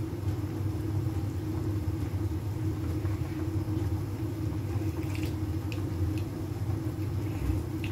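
Soup boiling in a pot on a lit gas stove burner: a steady low rumble and hum, with a few faint light clicks about five to six seconds in.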